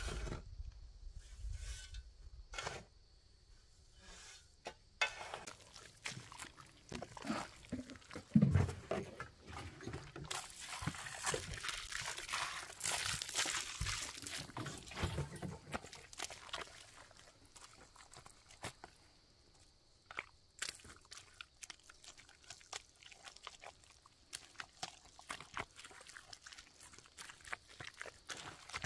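Soil being mixed into mud by hand. A shovel scrapes and crunches through dry earth, with one heavy thump about a third of the way in. Water is poured from a plastic jerrycan onto the soil with a steady hiss and splash through the middle, then feet tread the wet mud in a run of short squelches.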